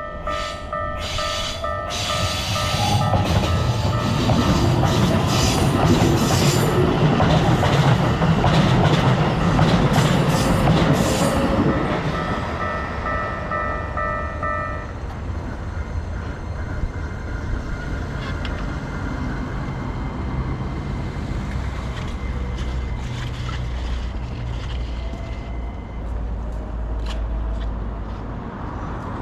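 Railway level-crossing warning bell ringing in a fast repeating two- or three-note tone while a Keikyu train passes over the crossing with wheel clatter. The bell stops about halfway through, and a lower train rumble carries on after it.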